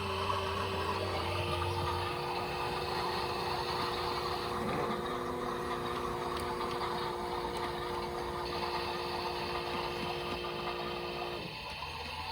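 Several toy washing machines running together, their small electric motors whirring with a steady hum. The hum cuts off suddenly near the end.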